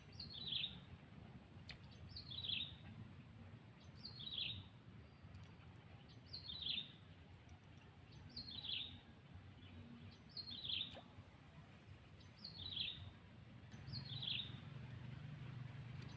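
A bird calling over and over: one short, high, falling call about every two seconds. A steady high-pitched whine runs underneath.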